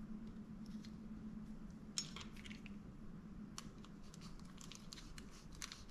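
Faint small metallic clicks and taps of a precision screwdriver being set into and turning the small screws of a Shimano Curado MGL 151 baitcasting reel, the sharpest click about two seconds in. A low steady hum runs underneath.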